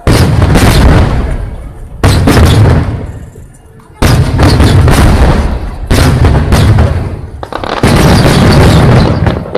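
Aerial firework shells bursting: five loud booms about two seconds apart, each trailing off in a long crackling rumble.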